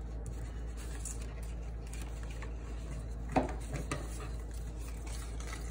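Paper handled on a tabletop over a steady low room hum: a short sharp tap and rustle about three and a half seconds in, and a softer one just after, as a sheet of drawing paper is picked up.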